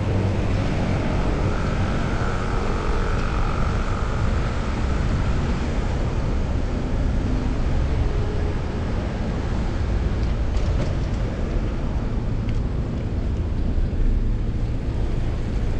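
Steady low wind rumble and tyre-on-road noise from a fixed-gear bicycle being ridden, heard through a chest-mounted action camera's microphone.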